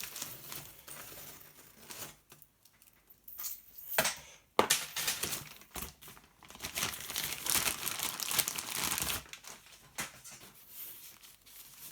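Packaging crinkling and rustling as it is handled, in uneven spells that are busiest in the middle, with one sharp click a little past four seconds.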